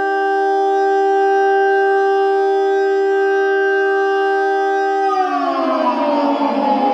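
Electric guitar played through an Axe-FX III preset: a held chord with a sustained, horn-like tone that swells in and rings steadily, then about five seconds in its pitch slides downward into a rougher distorted chord.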